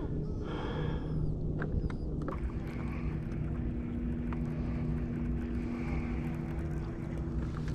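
A boat motor running steadily, a low hum with a few steady tones, with a few light clicks.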